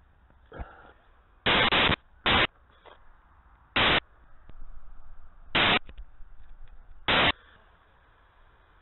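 Six short bursts of harsh, static-like noise, each loud enough to clip, spread over several seconds against a faint hiss.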